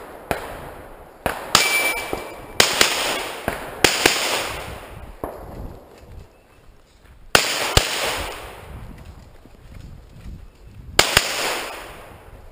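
A string of gunshots from a competition shooter's firearm: about ten shots, mostly in quick pairs, with gaps of a few seconds between groups. Each shot is followed by a long fading echo.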